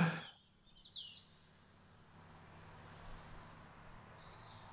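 Quiet outdoor ambience: a few faint, high bird chirps over a low steady hum.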